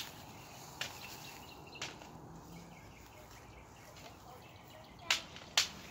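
A few sharp clicks and knocks over a faint, steady outdoor background, with the two loudest close together near the end.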